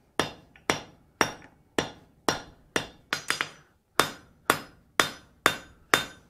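Hand hammer striking red-hot steel on an anvil, about two blows a second with a quick triple blow about three seconds in, each strike leaving a short metallic ring. The blows are driving down the flared fish-lip ears on the end of the bar.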